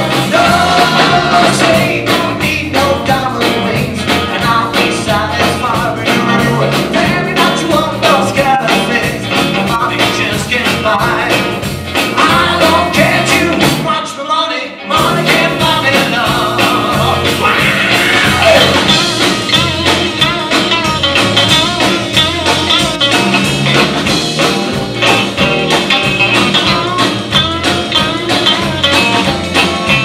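Live 1960s-style rock band playing: electric guitars, a violin bass and drums, with a lead vocal. The music breaks off for about a second around the middle, then carries on.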